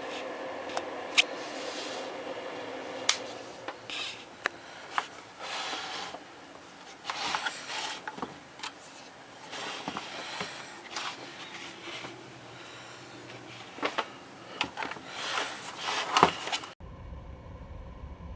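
Handling noises: a string of sharp clicks and knocks, the loudest a little after one and three seconds in and again near sixteen seconds, with bursts of rustling and scraping over a faint steady hum. Near the end it cuts abruptly to a low, steady hum.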